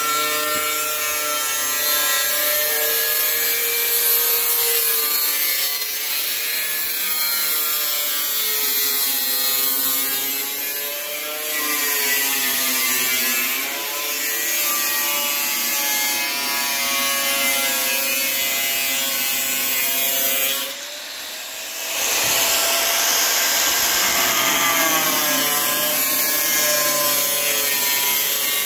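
Angle grinder running against sheet metal, its whine wavering up and down in pitch as the load on the wheel changes. It drops away briefly about three-quarters of the way through, then comes back.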